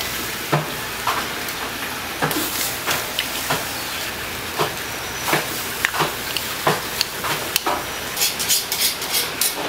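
Charcoal grill hissing steadily as raw eel fillets are laid on its wire rack, with irregular sharp clicks and taps and a quick run of them near the end.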